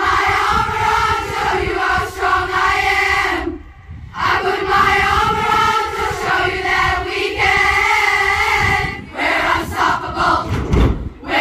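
A large crowd of school students singing and chanting a house war cry in unison, breaking off briefly a few times between phrases.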